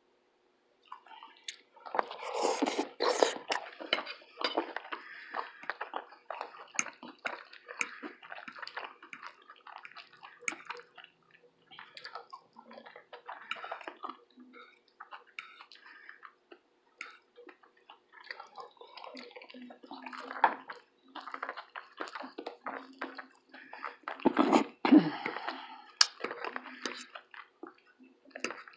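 Close-miked eating sounds: wet chewing and mouth clicks from someone eating French toast with syrup, in irregular bursts with short pauses. There is a louder burst about three-quarters of the way through.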